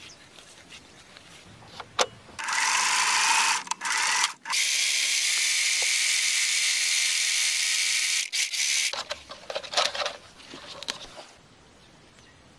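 Electric sewing machine running as it stitches a leather sheath. It runs for about two seconds, stops briefly, then runs steadily for about four more seconds and stops, followed by a few light clicks.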